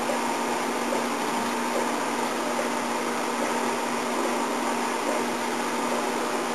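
Electric fan running steadily: an even rush of air with a constant low hum.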